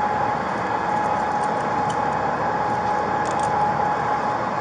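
Steady running of an idling vehicle engine nearby, an even hum with a constant mid-pitched tone through it.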